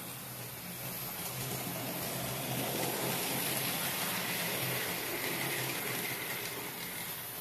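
Model railway train, a BR 64 tank locomotive model hauling coaches, running along the track: a steady rumble of wheels on rail with a low motor hum, loudest as it passes about halfway through.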